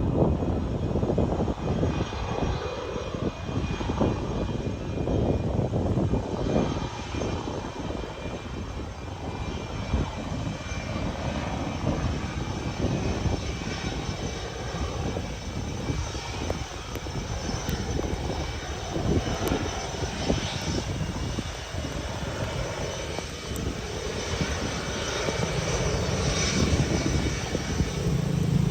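Aircraft engines running steadily: a dense rumble with a faint high whine held above it, growing louder near the end.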